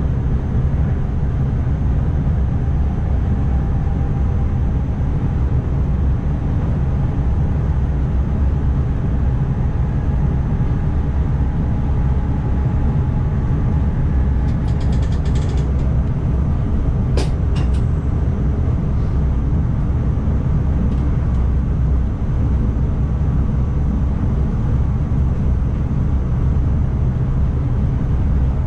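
Steady low rumble of an NS ICMm electric multiple unit running along the line, heard from inside the driver's cab. A few faint ticks and one sharp click come a little past halfway.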